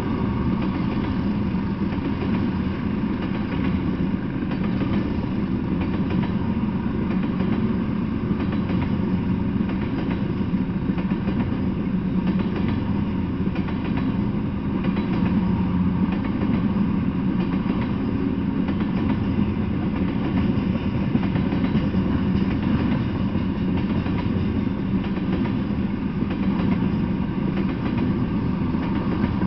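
Freight train of tank cars rolling steadily past, a continuous rumble of steel wheels on the rails.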